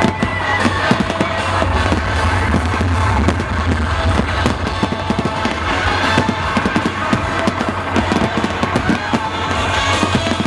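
Fireworks display: a dense, rapid run of bangs and crackles going off without a break, over music playing throughout.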